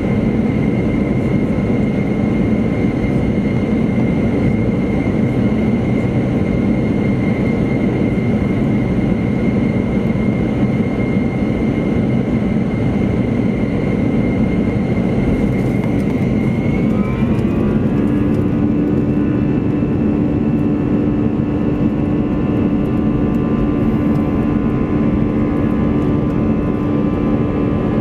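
Airbus A321 jet engines and airflow heard from inside the cabin: a loud steady rush with a high engine whine. About two-thirds of the way through, the whine rises in pitch and a new steady hum joins in.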